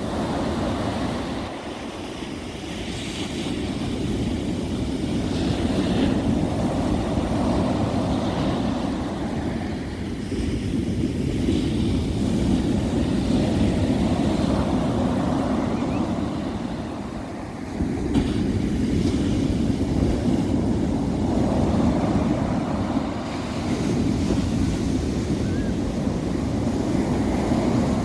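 Sea surf breaking on a sandy beach in winter: a continuous rush of waves that swells and ebbs every several seconds.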